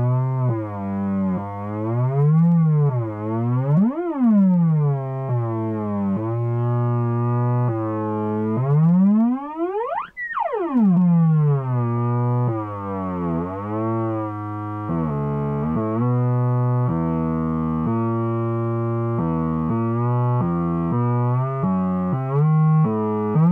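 Homemade electronic sound-effects table making a synthesized tone rich in overtones, its pitch gliding up and down in repeated sweeps. About ten seconds in it rises steeply to a high pitch and falls back, and from about fifteen seconds it jumps between stepped notes instead of gliding.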